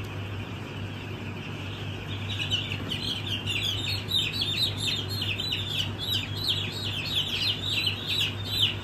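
Young broiler chicks, about a week old, peeping in a crowded shed: many short, high, downward-sliding peeps overlapping, growing denser and louder from about two seconds in, over a steady low hum.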